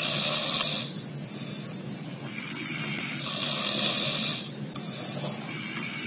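A sleeping man snoring through his nose: hissy nasal snores of about a second each, one with every breath, roughly three seconds apart, over a steady low hum.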